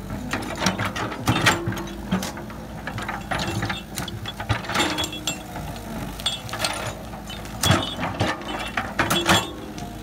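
Crawler excavator digging: its diesel engine runs steadily under load, over irregular clanks and knocks from the bucket and arm working the soil. Short high squeaks come in now and then.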